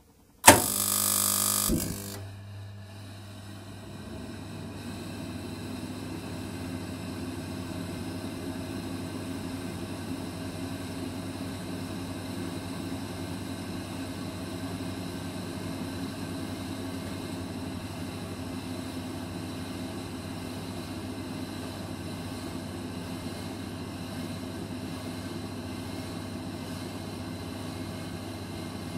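Dainichi kerosene fan heater igniting: a sudden loud burst lasting about a second, then the burner and fan settle into steady running with a low hum that builds over the next few seconds and holds.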